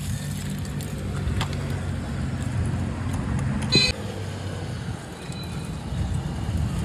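Road traffic: motor vehicle engines running steadily, with a short horn beep just before four seconds in.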